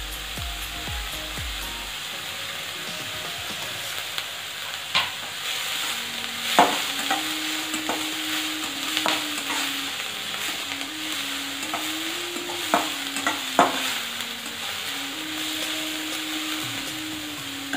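Chopped onion, garlic and green chilli sizzling in a little hot oil in a stainless steel kadai while a metal spatula stirs them, scraping and clicking sharply against the pan a few times from about five seconds in.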